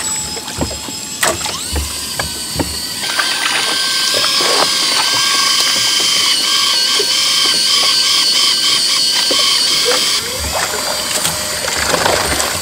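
Fishing reel whirring with a fish on the line: a steady mechanical whine that starts about a second in, grows stronger about three seconds in, and cuts off suddenly near the end. Scattered knocks around it.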